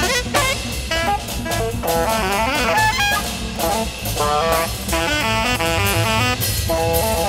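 Alto saxophone playing quick runs of notes over drum kit and double bass in a live jazz ensemble.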